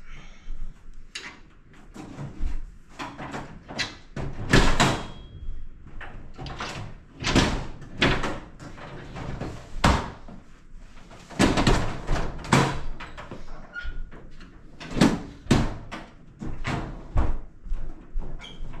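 Irregular metallic clunks, knocks and rattles from a K&J collapsible aluminum dog crate and its wheels being handled, as the wheels come off the bottom of the crate and go onto its top.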